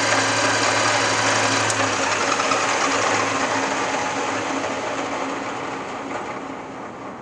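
Standard Modern 11 x 20 engine lathe's spindle running with a steady whir. A low hum drops out about two seconds in, and the sound then fades steadily as the spindle coasts down after switch-off.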